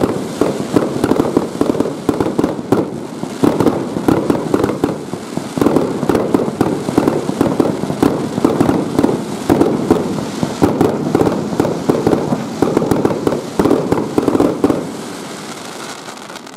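A rapid barrage of aerial fireworks launching and bursting in quick succession, making a dense, continuous run of pops and bangs that dies away about fifteen seconds in.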